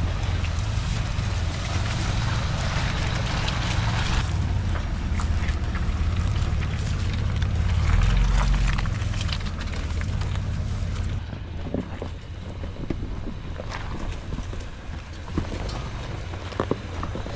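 Mitsubishi Pajero 4x4 driving slowly off-road over wet grass and mud, engine running with a steady low rumble, with wind on the microphone. The sound turns quieter and thinner from about eleven seconds in.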